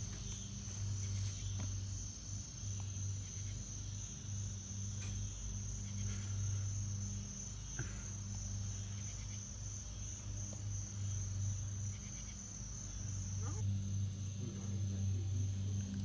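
Crickets trilling steadily in a constant high-pitched chorus, over a low steady hum.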